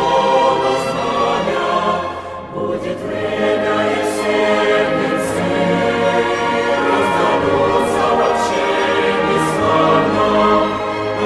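A choir singing, the voices holding long notes, with a brief break between phrases about two and a half seconds in.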